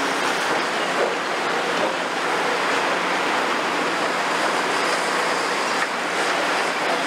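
Caterpillar demolition excavators' diesel engines running under load, a low steady hum under a continuous rushing crumble of concrete rubble as the building is torn down, with a few faint knocks.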